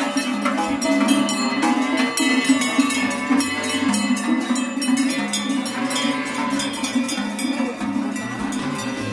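Many cattle neck bells clanking irregularly and without pause as a herd of Aubrac cows walks past.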